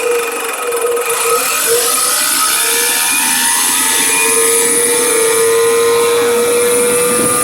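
Rebuilt aircraft starter motor running on the bench: a steady electric motor and gear whine that wavers early on, then climbs slightly in pitch and holds. The owners put much of the noise down to corrosion inside the motor.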